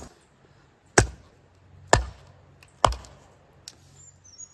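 Axe chopping into a cedar log: three sharp strikes about a second apart.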